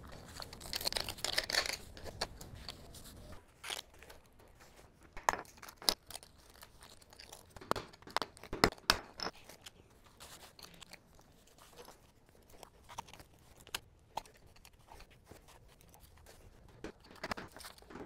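Gloved hands pulling old crack sealant and loose concrete bits out of a concrete floor crack: a tearing scrape for the first few seconds, then scattered sharp clicks and knocks of small pieces against the concrete.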